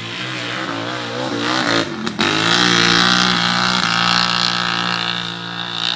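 Can-Am Outlander Max 1000 XT-P ATV's V-twin engine through a Muzzy dual exhaust, revving hard. The pitch wavers, dips briefly about two seconds in, then climbs and holds high revs before easing off near the end.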